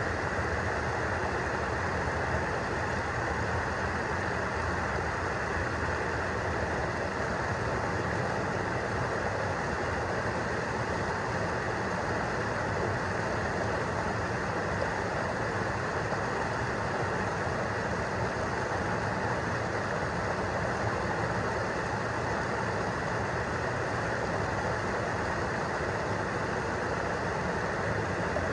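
Small waterfall: stream water pouring over a sloping rock ledge into a pool, a steady rush that does not change.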